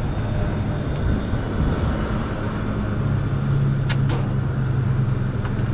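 Steady low motor or engine hum, its pitch stepping up about three seconds in, with two quick clicks near the middle.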